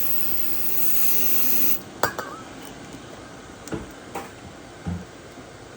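Aerosol can of starting fluid spraying in one hissing burst of about two seconds, then a few light clicks and knocks from handling.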